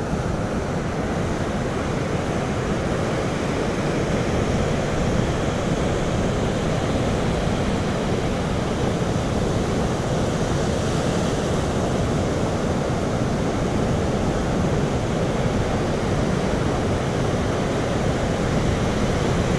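Ocean surf breaking on a sandy beach, a steady rush with no pauses, with wind on the microphone.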